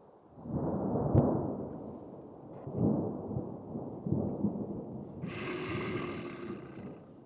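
Low rumbling handling noise, swelling and fading several times, as if a board book is being moved close to the microphone. There is a sharp click about a second in and a brief higher rasping sound near the end.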